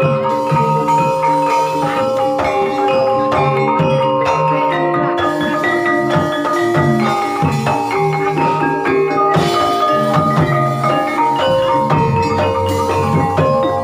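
Banyumasan ebeg gamelan music: tuned mallet-struck percussion rings out in a steady, continuous run of overlapping notes.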